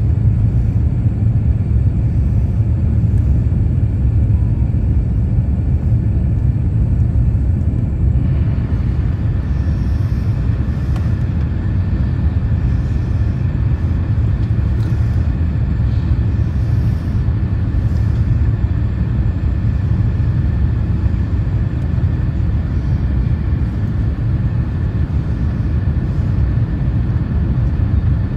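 Steady low rumble of engines and rushing air inside a jet airliner's cabin on final approach to landing. About eight seconds in, a higher hiss of air joins it.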